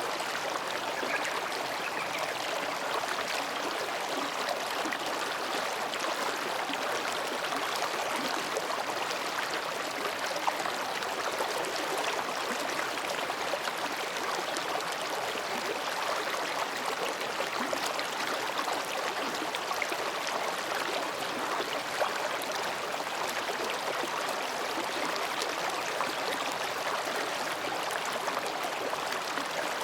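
Mountain stream babbling steadily over and between rocks, with a couple of brief splashes standing out.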